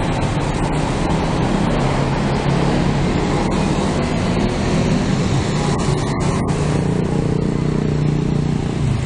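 Street traffic with cars and motorcycles driving past. A low engine hum grows stronger in the last few seconds as a vehicle passes close by.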